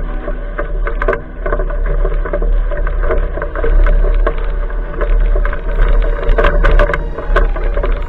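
Handling noise from an action camera mounted low on a bike rolling slowly over a rough, leaf-covered trail: a steady rumble with frequent knocks and rattles from bumps.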